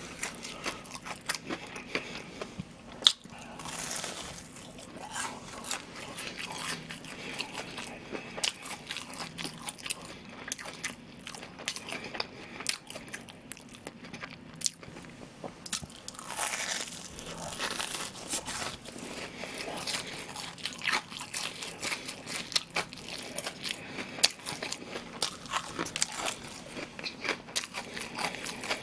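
Close-up crunching and chewing of crispy, breaded deep-fried pork cutlets (tonkatsu): the fried crust crackles with each bite and chew, with a sharp loud crunch about three seconds in.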